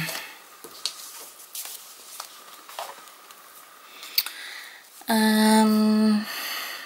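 Soft paper rustling and small taps as a card and a thin printed paper strip are handled, then about five seconds in a woman's steady hummed 'hmm' on one pitch, lasting about a second.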